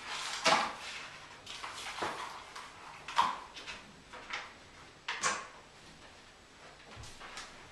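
Scissors snipping through paper held close to the microphone: several separate short, crisp cuts with rustling paper between them.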